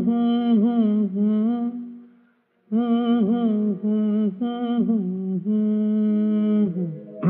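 A single voice humming a slow wordless melody with no accompaniment. It holds long notes with small ornamental turns, in two phrases split by a short break about two seconds in.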